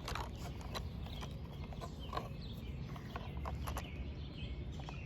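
Scattered light clicks and taps of plastic RC car parts being handled, as the body's push pins and wing are fitted.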